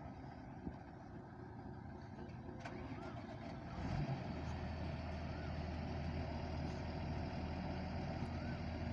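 Heavy diesel machinery engine running, rising to a louder, steady low drone about four seconds in.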